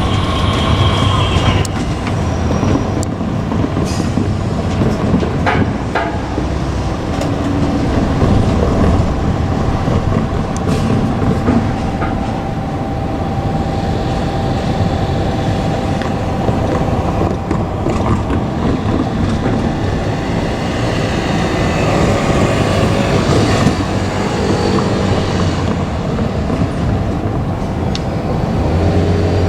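JR Kyushu KiHa 200 diesel railcar running past, a steady engine and wheel rumble with a few clicks from the rails. A steady high tone runs through the middle stretch.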